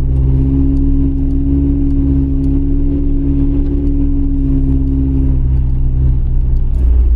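A 4x4's engine running at a steady low speed on a dirt trail, heard from inside the cab as an even low drone. The drone's higher tones ease off about five seconds in.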